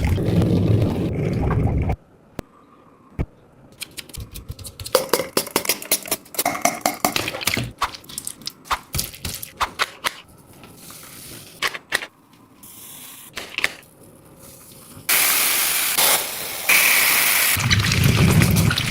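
Squishy toys being squeezed and crunched: a long run of irregular crackling clicks, then a loud steady hissing noise from about fifteen seconds in.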